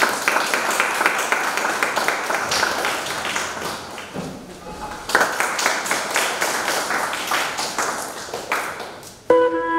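Audience applauding. The applause dies down about four seconds in and swells again a second later. Near the end a held instrumental note begins.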